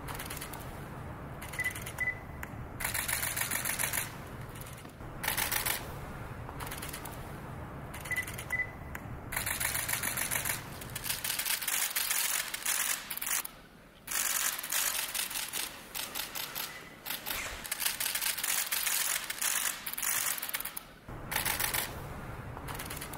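Press photographers' camera shutters firing in rapid bursts of clicks, burst after burst, with a short double beep twice in the first half.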